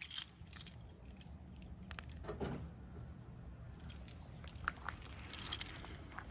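Car keys jingling in a hand in short, faint bursts, with light clicks, over a faint steady low rumble.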